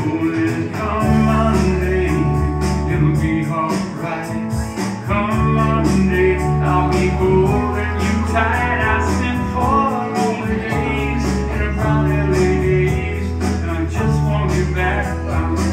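Live country music: a man singing into a microphone while playing guitar.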